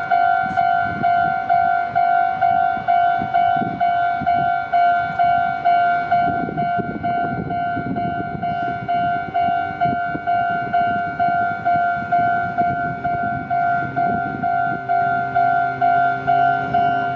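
Japanese level-crossing warning bell ringing, a repeating electronic ding about two and a half times a second, as a train passes with a low rumble and wheel knocks through the middle.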